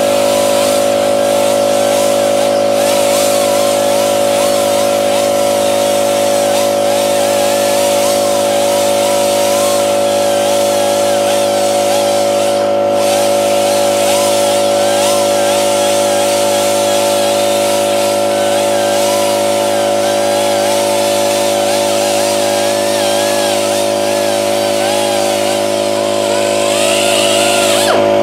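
Electric grinder with a worn abrasive disc running at a steady speed against a steel shaft, taking surface rust off it. The pitch holds constant throughout, with a light wavering rasp from the disc's contact on the metal.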